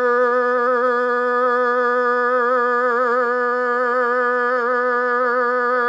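A single long held sung note, steady in pitch with a slight waver.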